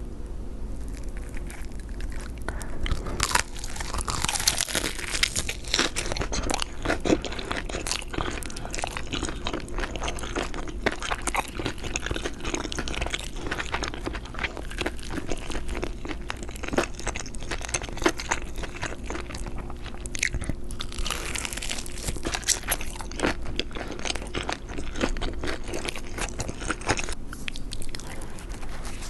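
Close-up crunching and chewing of crisp food, with bites and many sharp crackles following one another without a break.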